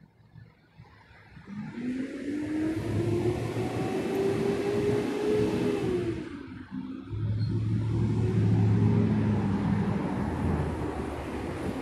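Cars driving past on a road with their engines accelerating. The engine note rises for several seconds, dips about six seconds in, then rises again over a steady rush of road noise as more cars go by.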